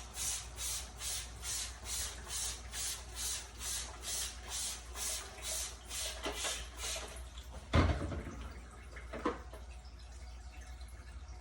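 Hand trigger spray bottle pumped rapidly, about two and a half hissing squirts a second, spraying cleaning solution onto dehumidifier parts. The spraying stops after about seven seconds, followed by a loud thump and a lighter knock, then faint dripping.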